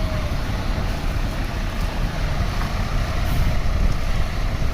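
Steady rumble of a heavy road vehicle's engine and road noise, with no horn sounding.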